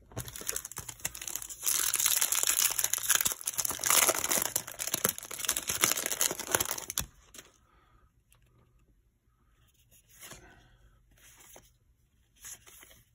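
Foil wrapper of a 2019 Topps Gallery baseball-card pack being crinkled and torn open, a loud crackling that lasts about seven seconds. A few soft rustles follow near the end.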